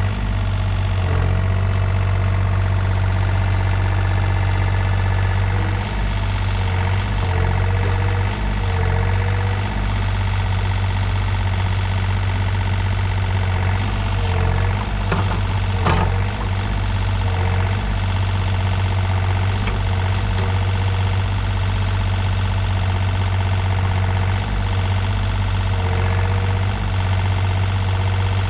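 Takeuchi TB235-2 mini excavator's diesel engine running steadily under load, with a hydraulic whine that rises and falls in pitch as the bucket and boom work to pull the machine out of mud. A sharp knock about halfway through.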